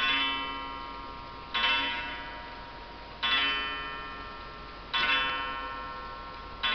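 Dugena pendulum wall clock striking twelve on its gong: five slow strokes about a second and a half apart, each ringing out and fading before the next.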